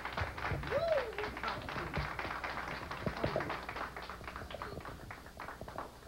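Scattered hand clapping that thins out and fades toward the end, with a short rising-and-falling vocal call about a second in.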